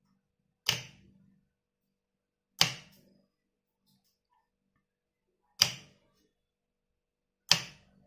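A 12 V solenoid door lock and its 5 V relay clacking sharply four times as the bolt is pulled in and then springs back, the lock opening and closing on its own after a few seconds.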